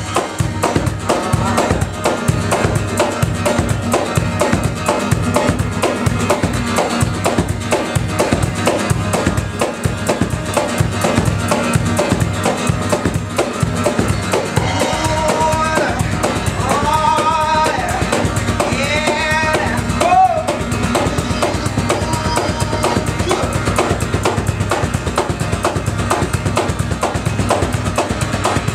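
Acoustic guitar strummed to a steady hand-slapped cajón beat. A voice sings a few lines over it around the middle.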